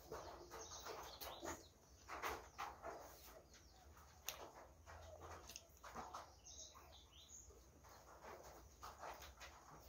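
Faint chewing of breaded chicken nuggets: scattered soft crunches and mouth clicks. A brief high chirp comes about halfway through.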